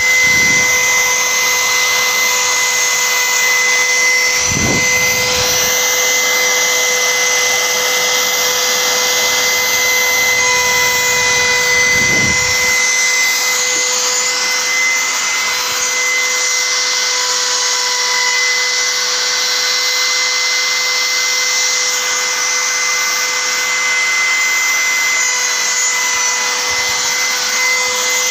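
CNC router spindle running steadily with a high-pitched whine while machining a finishing pass, with two brief low sweeps about 5 and 12 seconds in.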